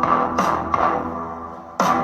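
Electronic music with a strong beat and bass notes.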